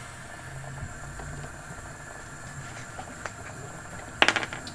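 Plastic bottle and screw cap handled in the hands, with a quick cluster of sharp plastic clicks near the end, over a faint low steady hum.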